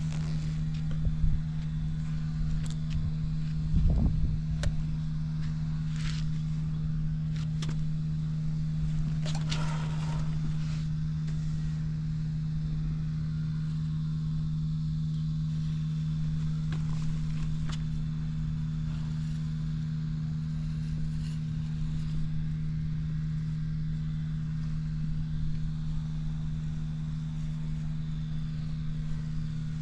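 Honda XL250S single-cylinder four-stroke engine idling steadily at an even speed, with no revving, and a few brief knocks near the start and about ten seconds in. The engine runs smoothly with no abnormal noises after long-term indoor storage.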